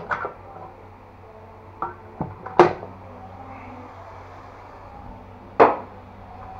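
A spatula knocking against a frying pan a handful of times, the loudest knock about two and a half seconds in and another near the end, over a steady low background noise.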